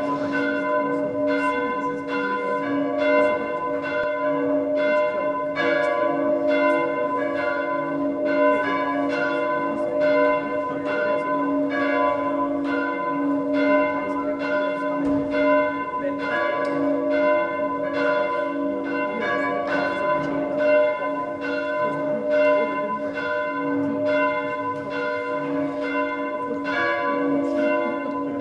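Church bells of a medieval church rung by hand: a continuous, even run of strokes at about two a second, each tone ringing on and overlapping the next.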